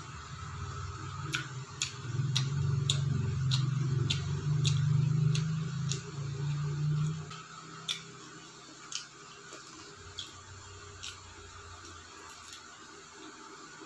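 Close-up chewing of fried chicken, with wet mouth-smacking clicks about two a second. Under it runs a low hum that stops about seven seconds in.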